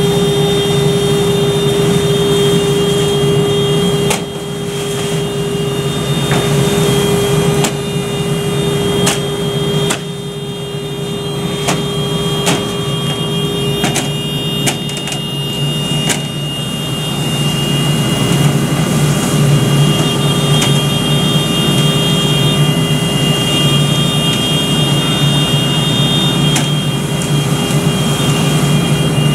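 Fire engine's engine running steadily at a constant pitch, driving the pump that supplies the hose line. Scattered sharp clicks and knocks in the middle stretch.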